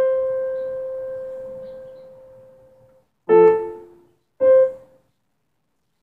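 Piano keyboard played slowly: a single held note dies away over about three seconds, then a chord is struck, then one short note.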